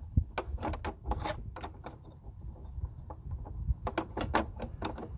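Steel wrench clicking and clinking against the bolts of a garden tractor's throttle-control panel as they are worked loose, in two quick clusters of taps, one about a second in and one near the end.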